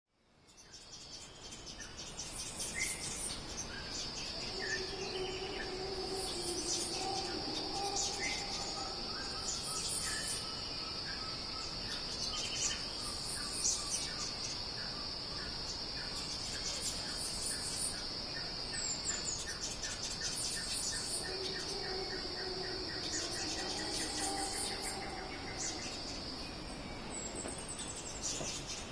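Tropical forest ambience: insects drone steadily on one high pitch, starting a few seconds in and stopping a few seconds before the end, while birds give scattered chirps and calls, including a fast run of ticking notes in the second half.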